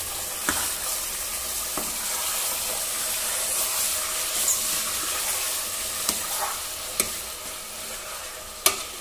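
Raw mutton pieces sizzling in hot mustard oil in a pressure cooker, stirred with a steel ladle that clinks against the pot a few times, loudest near the end.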